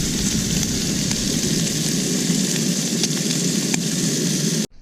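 Breakfast food frying in a pan over a camp fire or stove: a steady sizzle with a few small pops, cutting off abruptly near the end.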